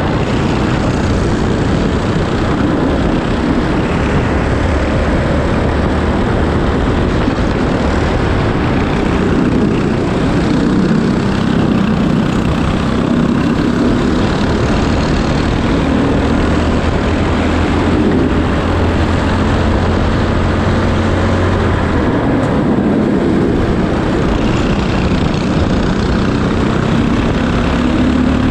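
Racing kart engine heard from the driver's seat, running hard with revs rising and falling through the corners, over a steady rush of wind.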